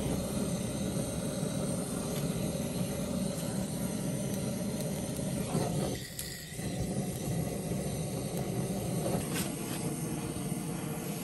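Whole chickens grilling in a frying pan: a steady sizzling hiss with a low rush underneath, dipping briefly about six seconds in.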